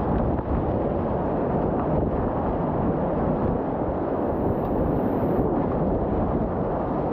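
Steady, muffled rush of whitewater with its treble dulled, as if heard through wet or covered microphone housing.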